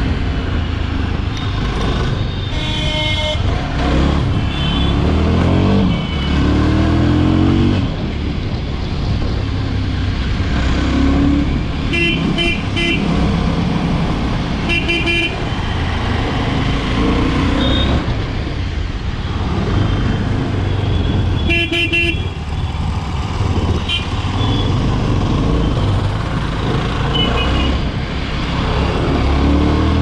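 Yezdi Scrambler's 334cc single-cylinder engine running on the move, its pitch rising as it accelerates through the gears a few seconds in. Vehicle horns honk several times in the surrounding traffic, the longest blast about 22 seconds in.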